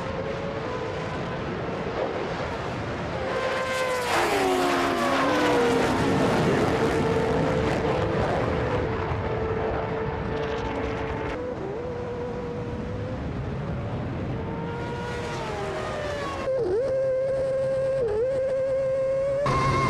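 High-performance vehicle engines revving and accelerating at speed, their pitch rising and falling. The sound changes abruptly several times, as separate clips are cut together.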